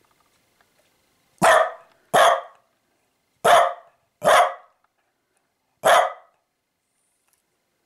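A small black-and-tan dog barking five times: two barks, two more, then a last one.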